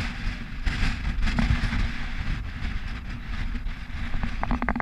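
Wind buffeting the camera microphone: a loud, rumbling rush that rises and falls, with a few sharp clicks near the end.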